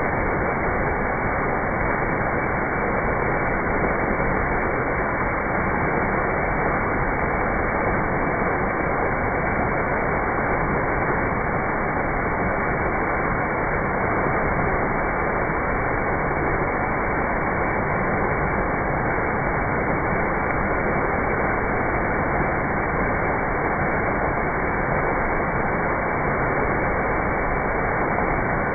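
Steady, even rushing of falling water from a waterfall or cascading stream, unbroken throughout, sounding dull with no high hiss.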